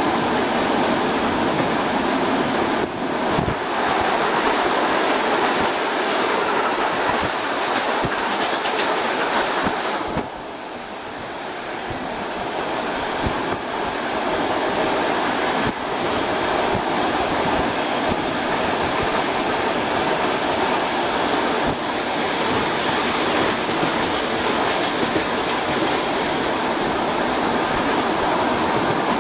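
ER2R electric multiple-unit train running at speed, heard from inside the carriage at a window: a steady rush of wheel and air noise with occasional sharp clicks. About ten seconds in the noise drops suddenly, then builds back up over a couple of seconds.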